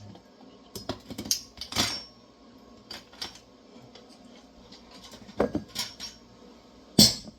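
Dishes clattering: a bowl being taken out and handled, with scattered clinks and knocks and one louder knock near the end.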